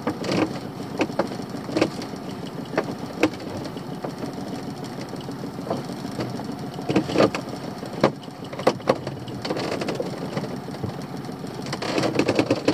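Small boat's engine idling steadily, with scattered knocks and clicks from rope and lobster pots being handled, and a quick run of knocks near the end.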